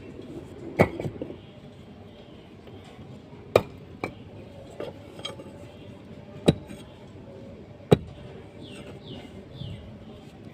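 Five sharp clinking knocks, hard objects striking each other, spread irregularly a second or more apart over a low background murmur. Three faint short falling chirps come near the end.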